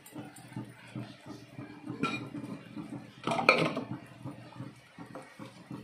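Metal ladle scraping and clinking against a cooking pan as thick dal is stirred, with the loudest clatter about three and a half seconds in.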